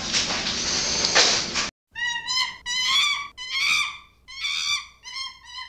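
A steady noisy hiss cuts off abruptly, then a cat meows about six times in quick succession, high wavering cries with a slight fall at the end of each, from an edited-in recording.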